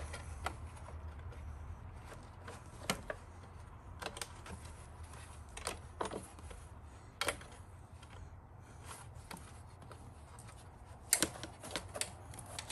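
Scattered light clicks and knocks of a rubber foot pad being pressed and seated into the Segway X2's foot platform by hand, with a few sharper knocks near the end.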